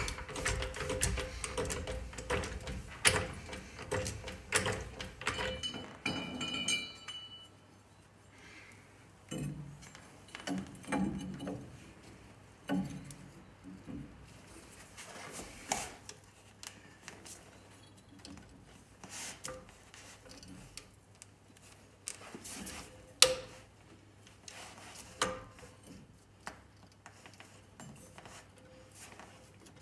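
Scattered metallic clinks and knocks of hand work on a truck's rear axle and brake drum, busier in the first six seconds over a steady low hum, then sparser, with one sharper knock a little past the middle.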